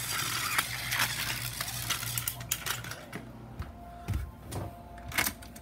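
Battery-powered TOMY toy train running on plastic track, its small motor whirring with a steady hum. About two and a half seconds in the whirr fades, leaving scattered plastic clicks and knocks.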